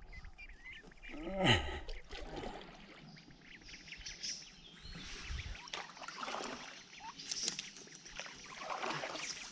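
Mallard ducks giving soft, scattered quacks, the loudest about one and a half seconds in.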